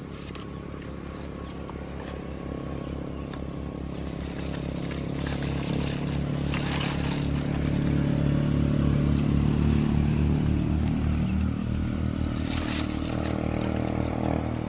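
An engine running, its low drone growing louder toward the middle and easing off near the end, with a couple of short rustles of leaves as branches are shaken.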